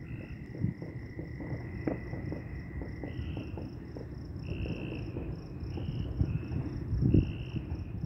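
Night insects, crickets, chirping in a steady high-pitched pulse about six times a second, with a second, lower chirping joining in stretches from about three seconds in. Under them runs a low, uneven rumble with soft thumps, loudest about seven seconds in.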